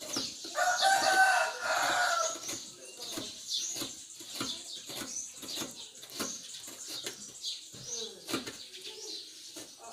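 A half coconut scraped against the serrated metal blade of a traditional seated coconut grater, in an even rhythm of scraping strokes about two a second. About half a second in, a rooster crows loudly for about two seconds, and small birds chirp throughout.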